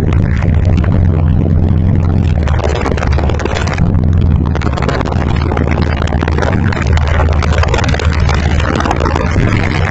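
Fi Car Audio SP4 15-inch subwoofers playing bass-heavy music very loud in a demo. Deep sustained bass notes dominate, with a harsh distorted haze over them.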